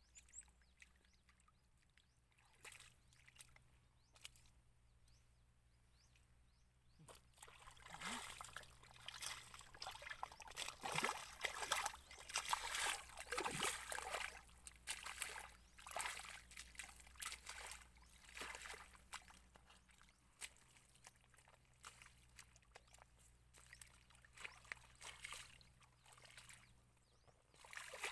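Shallow muddy water and mud sloshing and squelching in irregular splashes, sparse at first and then busier, as hands grope through the mud and feet wade through it.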